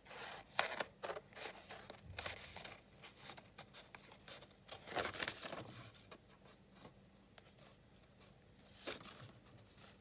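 Scissors snipping through an old book page, cutting around the edge of a packaging card, in scattered short cuts with paper rustling as the sheet is turned; the loudest rustle comes about five seconds in.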